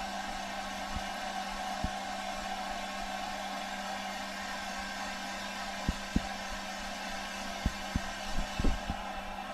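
Small electric blower motor whirring steadily with a hum, joined by several short low thumps from about six seconds in.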